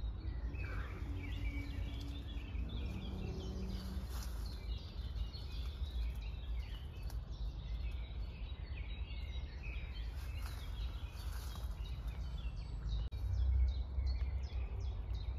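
Small songbirds chirping and singing, many short calls and trills overlapping, over a steady low background rumble that swells briefly near the end.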